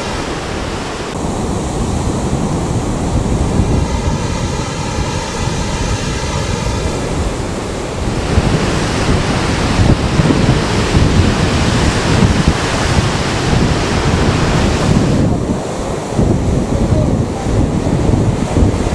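Storm surf breaking heavily on the shore, with strong wind buffeting the microphone; the gusts get heavier about halfway through.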